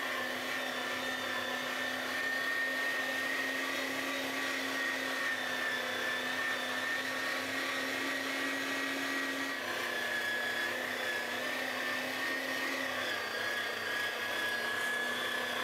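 Electric meat grinder running steadily as it minces damp, pre-blended fireweed leaves: a steady motor drone with a high whine above it. The pitch drops slightly about ten seconds in.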